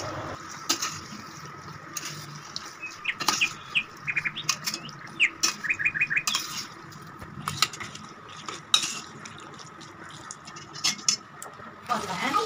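A metal spoon scrapes and clinks against a stainless-steel pot as chicken is stirred into a thick masala, in scattered sharp knocks. In the middle, a bird chirps in the background in a quick run of short notes.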